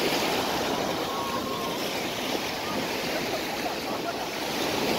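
Sea surf breaking and washing up a sandy beach: a steady rush that swells near the start and again near the end. Faint voices in the background.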